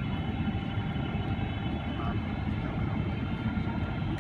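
Steady cabin noise inside a Boeing 777-300ER descending on approach: a low rumble of airflow and the GE90-115B engines, with faint steady whining tones above it.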